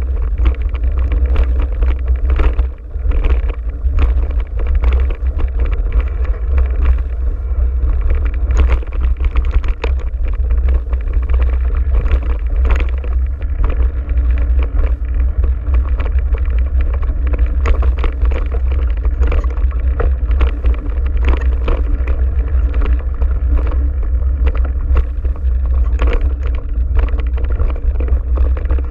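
Mountain bike riding over a rough dirt singletrack: a constant heavy rumble of wind on the microphone, with frequent knocks and rattles of the bike over bumps and roots.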